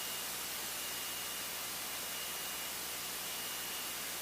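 Steady static hiss of a light aircraft's cockpit intercom and headset audio feed, with a thin, steady high tone and a faint low drone underneath.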